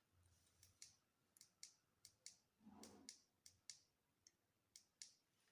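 Faint, irregular light clicks, about a dozen, with a soft low rustle about three seconds in.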